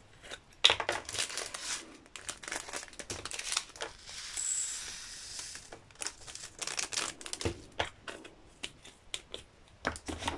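Small plastic drill bags crinkling and plastic storage jars clicking as round diamond-painting drills are sorted into them, with a short rattling pour of drills about four seconds in.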